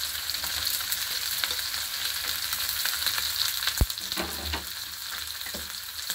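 Oil sizzling in a nonstick frying pan as chopped ridge gourd goes in on top of frying prawns and onions: a steady hiss with a few light knocks, the sharpest just under four seconds in.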